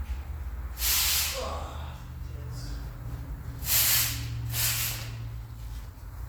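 Three short bursts of hiss, the second and third close together, over a steady low hum.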